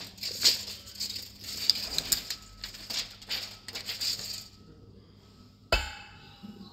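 Steel tape measure clicking and rattling as its blade is pulled out and handled along the floor, in quick irregular clatters that die down after about four seconds. One sharp knock follows near the end.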